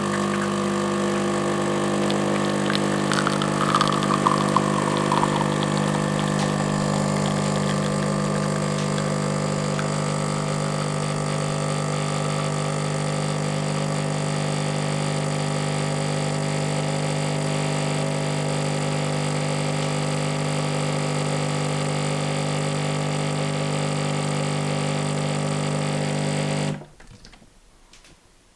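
De'Longhi Magnifica S bean-to-cup coffee machine running with a steady mechanical hum, with a brief falling whine a few seconds in. The hum cuts off suddenly near the end.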